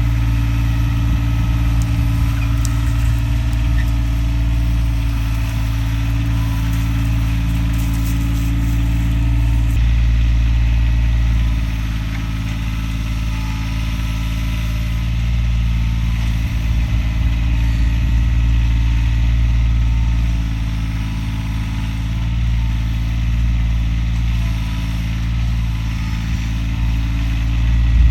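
Tractor engine running steadily, its level dipping and rising a little as the load changes.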